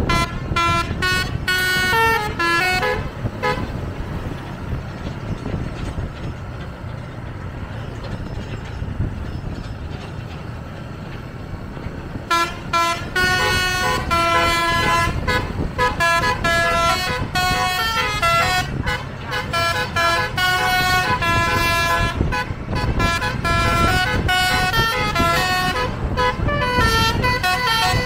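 Bus's multi-tone basuri 'telolet' horn playing a quick tune of short, changing notes. It stops for several seconds, leaving engine and road noise, then starts again about twelve seconds in and plays on.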